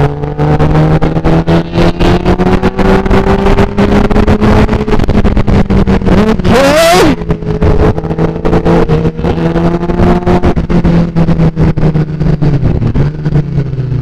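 Sportbike engine through an Austin Racing exhaust, running steadily on the overrun as the bike slows, with a quick rev blip and a loud burst about halfway through. Wind buffets the microphone.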